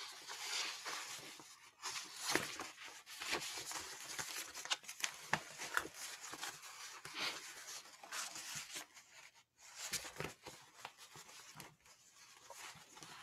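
Paper rustling and pages being handled, with irregular crinkles and small clicks, as pages are leafed through to find the next poem.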